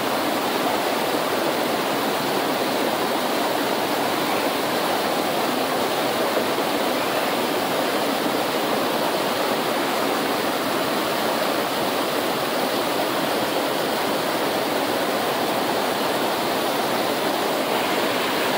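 Fast-flowing Himalayan river rushing steadily, an even wash of white-water noise with no breaks.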